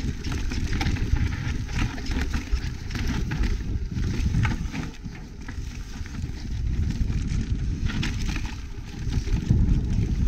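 Mountain bike rolling down a dirt singletrack strewn with dry leaves: a steady low rumble from the tyres and the ride, broken by frequent short clicks and rattles from the bike as it goes over bumps.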